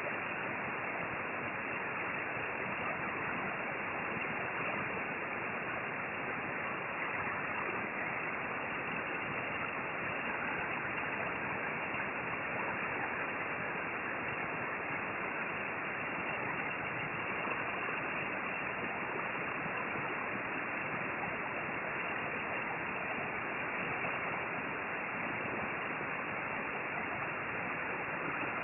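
Hot-air rework station blowing steadily over the circuit board, a constant even rush of air with no breaks. The airflow is set a little too high while it reflows the solder under a USB3320 chip.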